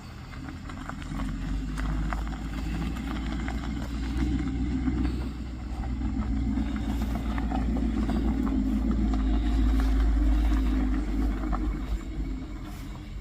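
2019 Camaro SS's 6.2-litre V8 exhaust rumbling, growing louder over about ten seconds and then dropping off near the end, with scattered crackles and pops from the exhaust throughout.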